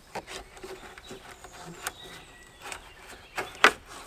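Rubber wheel-arch trim strip being pulled off a Subaru's rear wheel arch by hand: scattered rustling and light clicks as it comes away, with two sharp snaps near the end, the second the loudest.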